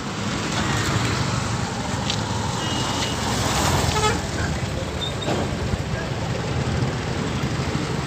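Road traffic passing on a bridge: a motor scooter's engine and tyres going by close, under a steady traffic rumble.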